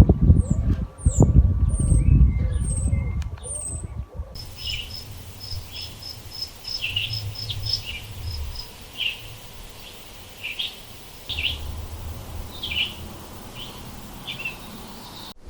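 Small songbirds chirping and calling. In the first few seconds, quick high chirps ride over a loud low rumble. After an abrupt change about four seconds in, a run of short high pips and scattered chirps plays over a faint hiss.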